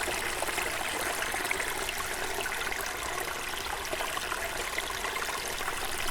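Small mountain brook trickling and babbling over stones, heard up close, a steady splashing murmur.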